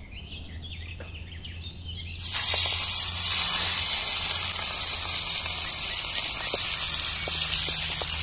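Birds chirping faintly, then about two seconds in a loud, steady sizzle starts suddenly: beef steak with garlic frying in hot oil in a pan over a wood fire, with small pops through it.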